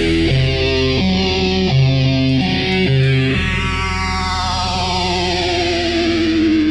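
Instrumental rock music: distorted electric guitar with effects, playing a chord pattern that changes about every half second over a steady bass, with a sweeping effect and a wavering held note near the end.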